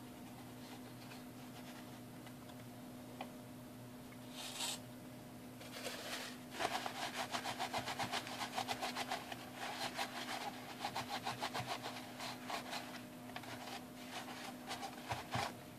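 Blue shop towel scrubbing inside a plastic battery compartment, wiping up alkaline leak residue. It starts about six seconds in and goes on in quick back-and-forth rubbing strokes, about five a second.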